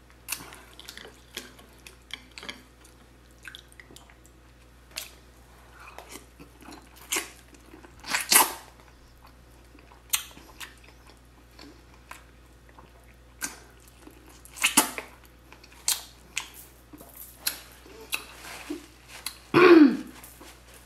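A person eating a seafood boil of crab and crawfish close to the microphone: irregular chewing and wet smacking, with a few louder sharp noises, the loudest about eight seconds in and just before the end.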